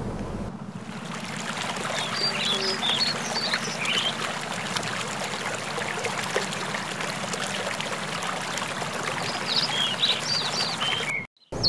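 Steady wash and trickle of water around a moving canoe, with birds chirping in quick runs of short high notes a couple of seconds in and again near the end.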